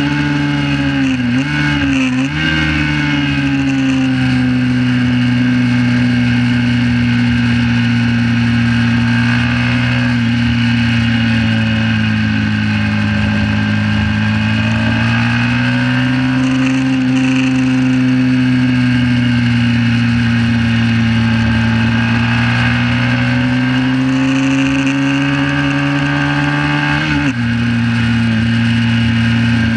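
1968 Honda CB350's air-cooled parallel-twin engine running hard at high revs under racing load. Its pitch dips quickly twice about two seconds in, sags and rises through the middle, and drops suddenly near the end at a gear change.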